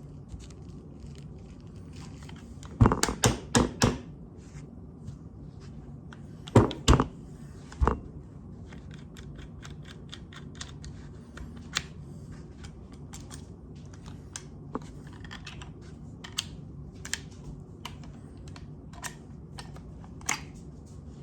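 Metal clicks and clunks of a Remington Model 12A slide-action .22 rifle being taken apart by hand, with a quick run of several knocks about three seconds in and another cluster around seven seconds, and lighter scattered clicks in between.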